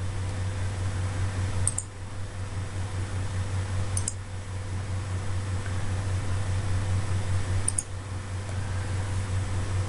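Steady low hum and hiss of room tone, with three faint short clicks spread through it.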